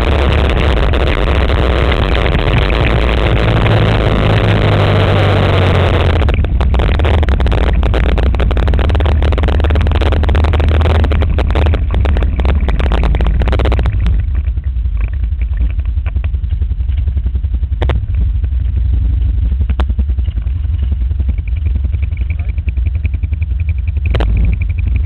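Quad bike (ATV) engine running steadily under way, with a loud rushing noise over it for the first six seconds. Rattles and knocks follow until about halfway through, then mostly the low engine hum remains.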